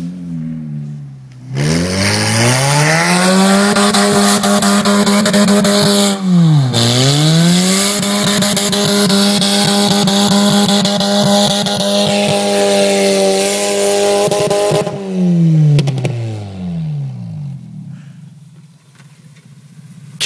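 Toyota Corolla's four-cylinder engine revved hard and held at high revs for a drift on snow, with a loud hiss over it. About seven seconds in the revs drop sharply and climb straight back, and near the end the revs fall away as the car slows.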